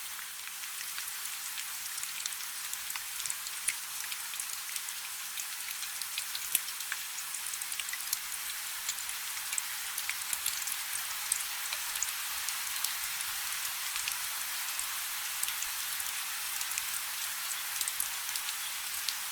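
Steady rain: an even hiss scattered with sharp ticks of individual drops striking.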